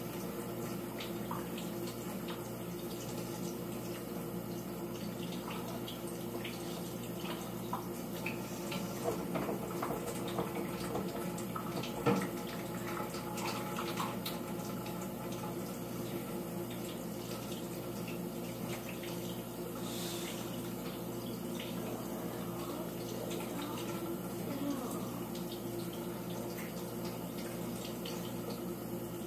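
Water running from a kitchen tap into the sink as hands are washed, with a few small knocks and clatters; the sharpest knock comes about twelve seconds in.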